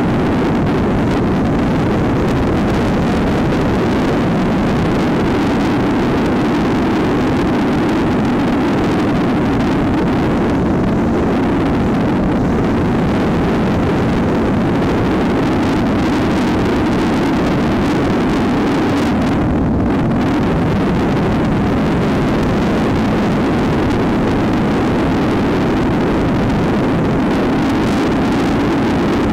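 Trail motorcycle engine running steadily at cruising speed, mixed with the rush of riding wind over the bike-mounted camera's microphone.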